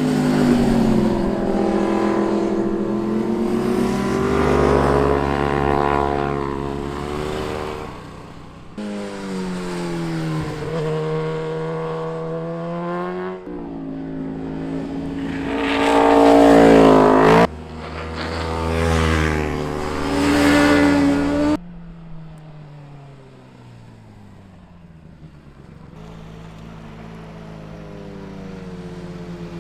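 Sport motorcycle engines revving and passing at speed one after another, their pitch climbing and falling, in short clips that cut abruptly from one to the next. The loudest pass comes just past halfway, followed by a quieter stretch in which another bike approaches near the end.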